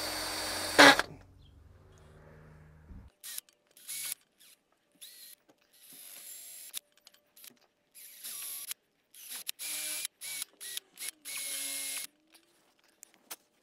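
Power drill with a small HSS bit drilling out a seized ABS wheel speed sensor stuck in its hub bore. It runs, stops with a sharp knock about a second in, then after a pause is run in many short bursts of a second or less.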